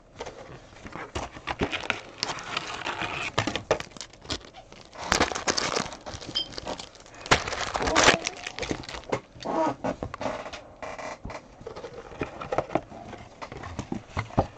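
Foil trading-card packs and a cardboard box being handled: irregular crinkling and rustling of the wrappers, with scattered light taps and clicks.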